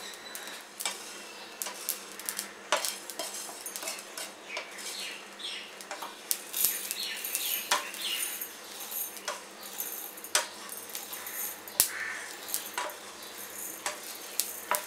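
A spatula scraping and knocking against a nonstick frying pan as dry-roasted whole spice seeds (mustard, fenugreek, fennel, cumin) are scraped out and rattle into a steel mixer-grinder jar. Irregular clicks and scrapes.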